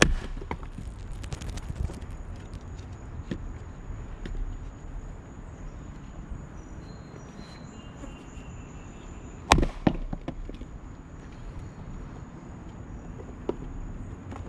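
Two axe blows splitting maple firewood on a chopping block: a sharp crack right at the start, followed by a second or two of split pieces clattering, and a second heavy blow about nine and a half seconds in.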